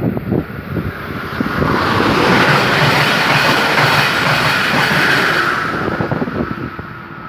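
A passenger train passes through the station at speed: a rushing, rattling sound of wheels on rail that swells for a few seconds and then fades away, with wind buffeting the microphone.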